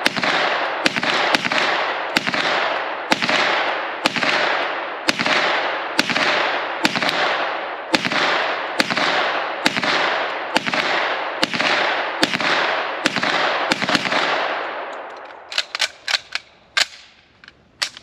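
Steady semi-automatic fire from a POF AR-style braced pistol, about two shots a second for some fifteen seconds, each shot ringing out with a long echo. The firing stops and a few sharp clicks and knocks follow near the end.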